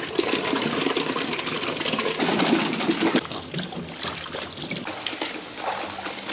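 Water splashing and sloshing as tomatoes and shallots are tipped into a large pot of water and stirred by hand to wash them. The splashing is louder for about the first three seconds, then softer.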